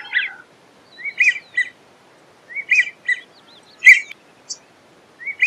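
Drake American wigeon giving its whistled calls: short groups of two or three wheezy notes that rise and fall, repeated about every second and a half, with one louder, sharper call about four seconds in.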